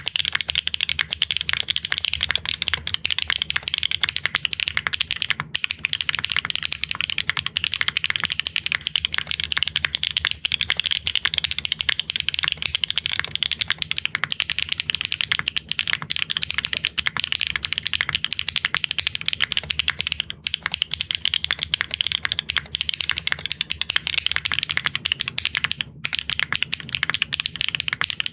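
Mechanical keyboard with linear switches on a PBT plate, typed on fast and continuously: a dense stream of key clacks with a few brief pauses.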